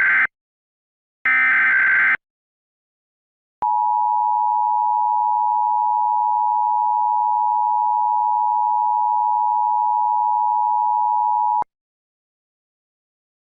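Emergency Alert System alert start: the last short, buzzy data bursts of the SAME header, then, after a gap of about a second and a half, the EAS two-tone attention signal (853 and 960 Hz together). The attention signal holds steady for about eight seconds and cuts off suddenly. It announces a blizzard warning.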